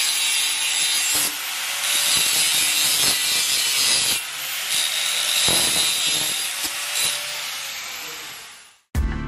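Stick welding arc crackling steadily while a root pass is run with the rod fed into the bevel gap, swelling and easing in level. It fades out near the end as the arc is broken.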